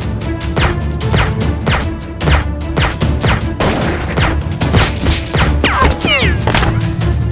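Action soundtrack music under a rapid run of added sound effects: sharp shot-like hits, falling whizzes, and a crash about four seconds in.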